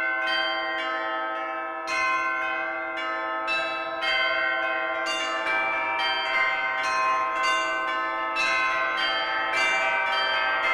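Background music of bell-like chimes: struck notes that ring on and overlap one another, coming more often after about two seconds.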